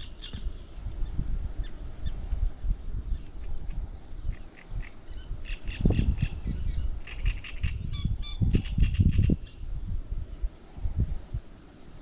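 Waterfowl calling: bursts of quick, repeated calls, busiest in the second half, over an intermittent low rumble.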